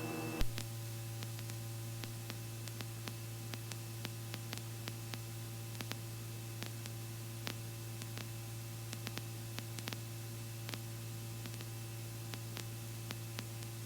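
Quiet electrical hum and hiss on the helicopter's headset/radio audio feed between transmissions, with faint scattered clicks of static.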